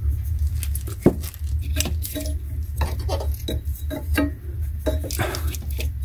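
Handling noise as an electric coolant pump and its hoses are fitted into a car's engine bay: irregular clicks, taps and light knocks, the sharpest about a second in, over a steady low hum.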